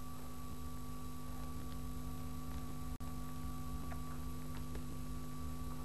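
Steady electrical hum at several fixed pitches over even hiss, with no other sound; it cuts out for an instant about three seconds in.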